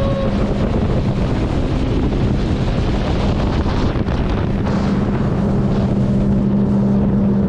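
A small boat's motor running steadily under way, with water rush and wind buffeting the microphone.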